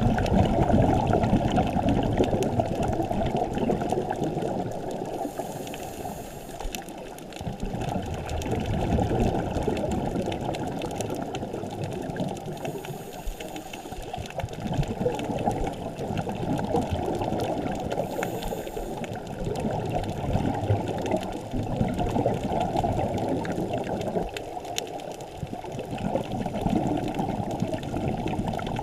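Scuba diving heard underwater through a camera housing: a muffled, continuous bubbling rush of a diver's exhaled bubbles from the regulator, swelling and fading, with a short high hiss a few times.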